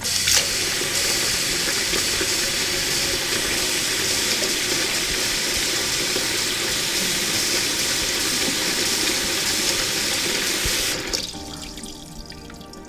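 Noodles deep-frying in hot oil in a miniature pot: a loud, steady sizzle that starts suddenly and dies away about eleven seconds in as the noodles come out of the oil, leaving soft background music.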